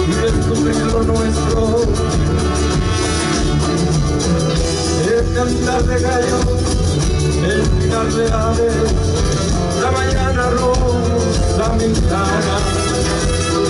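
Live Latin American folk-rock band playing an instrumental passage: acoustic and electric guitars over a drum kit with shaken percussion, with trombone and trumpet playing near the end.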